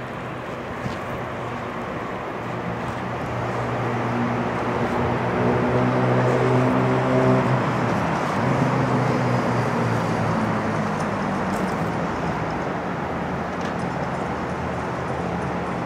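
Street traffic with a motor vehicle passing: a steady rush that swells as the vehicle's engine hum grows, peaks a little past the middle, then fades back to the traffic noise.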